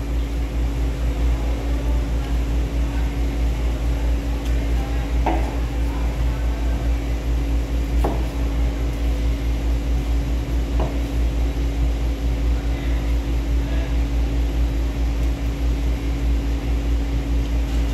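A steady low machine hum with a constant tone runs throughout. Over it come a few faint knocks of a knife cutting raw chicken on a plastic cutting board.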